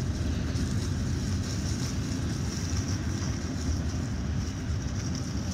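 Steady low vehicle rumble with no distinct events: road noise of a car moving alongside a passing double-stack intermodal freight train.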